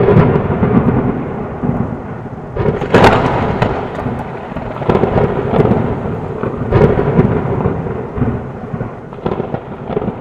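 Rolling thunder of a thunderstorm, with rain, as an intro sound effect. The loudest crack comes about three seconds in, another just before seven seconds, and the rumble dies slowly away near the end.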